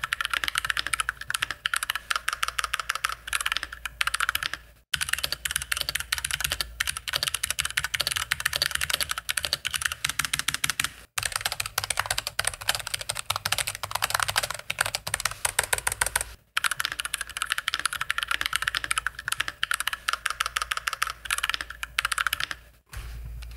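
Fast, continuous typing on a mechanical keyboard, a dense run of key clicks and clacks, broken by brief pauses about five, eleven and sixteen seconds in.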